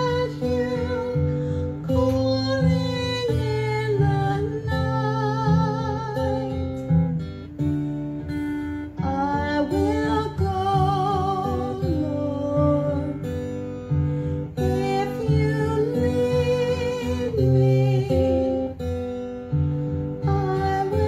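Music: a song with acoustic guitar accompaniment and a singing voice that holds notes with vibrato.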